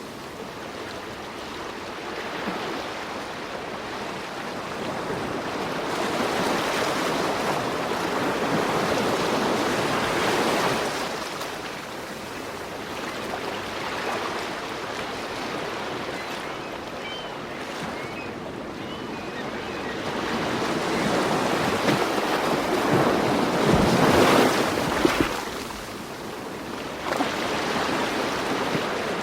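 Ocean waves washing in and drawing back, the surf rising and falling in slow swells, the loudest one about three-quarters of the way through.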